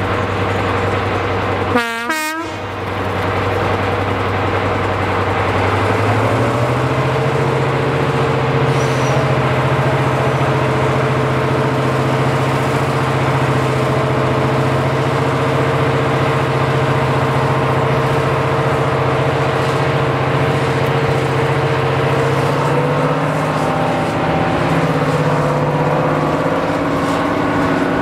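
Diesel locomotive engine running hard under load, a steady droning note that steps up in pitch about six seconds in and then holds. A short sharp sound comes about two seconds in.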